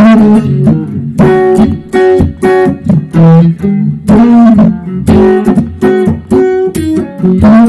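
Electric guitar, a Stratocaster played through a Fender DeVille 4x10 amp and a Dumble-style steel string drive, playing a loud blues lick of single notes with several string bends.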